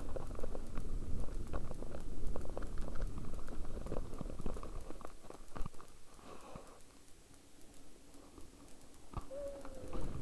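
Mountain bike rolling slowly over a dirt and gravel trail, with tyre crunch and irregular clicks and rattles from the bike. It gets much quieter after about six seconds as the bike comes to a stop off the trail.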